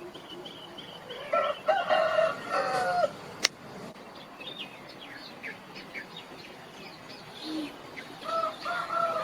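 Rooster crowing: one long crow about a second in, and another starting near the end. Small birds chirp faintly throughout, and a single sharp click comes just after the first crow.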